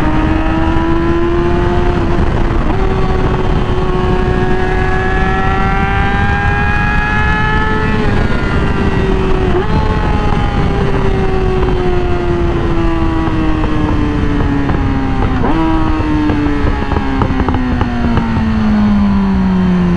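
Yamaha R6 sport bike's inline-four engine under way, its pitch climbing for the first several seconds, then falling steadily as the bike slows, with a few brief breaks in pitch along the way. Wind rush lies beneath the engine.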